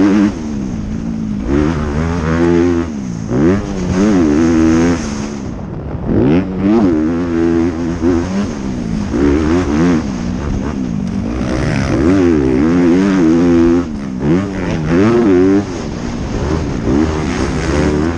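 Honda CRF250R motocross bike's single-cylinder four-stroke engine revving hard, its pitch climbing and falling over and over as the rider opens the throttle, shifts and backs off through the turns.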